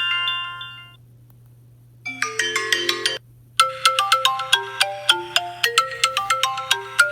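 iPhone 12 mini ringtones: one melody dies away in the first second, a second begins and cuts off after about a second, and a third starts about three and a half seconds in as a quick run of repeating notes.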